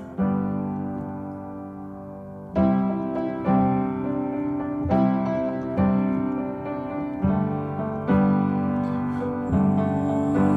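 Background music: an instrumental break of a song, with piano chords struck one after another and left to ring out, and no singing.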